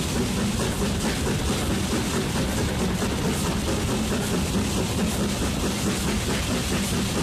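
Steam locomotive under way, heard from its own cab: a loud, steady, dense rush of sound from the engine working and its running gear on the rails.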